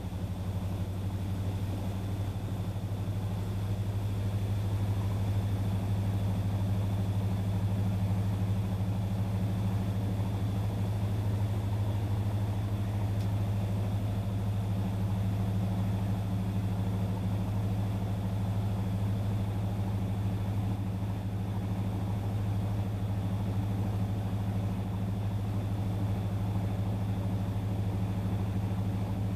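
Panasonic NA-FA10K1 top-loading washing machine running with a steady low motor hum and a faint high whine.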